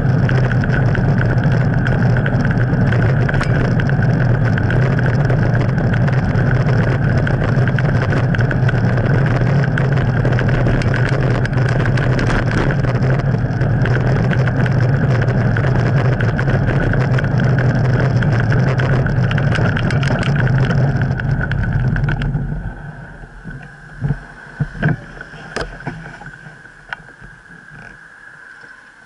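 Wind buffeting and road rumble on a handlebar-mounted camera as a bicycle rides along a paved road, with a steady high whine. About three-quarters of the way through the rumble drops away sharply as the bike slows for a crossing, leaving a few short knocks.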